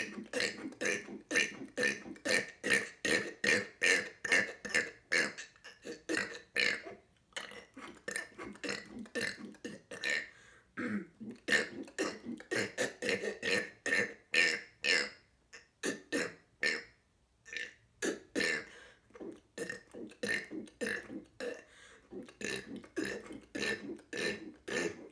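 A man burping over and over in quick succession, short burps about two or three a second, with a few brief pauses for breath.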